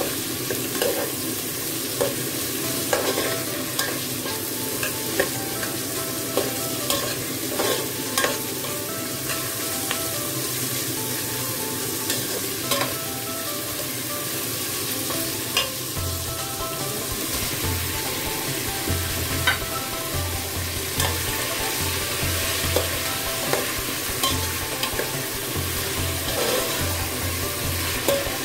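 Onions, garlic and ginger sizzling as they sauté in an aluminium pot, stirred with a metal spoon that scrapes and clicks against the pot again and again.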